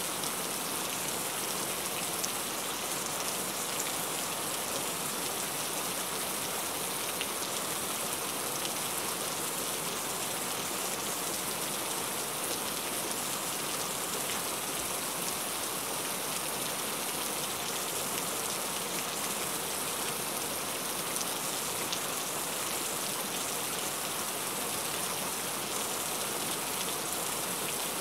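Heavy rain falling steadily: an even, unbroken hiss with a few faint ticks of single drops.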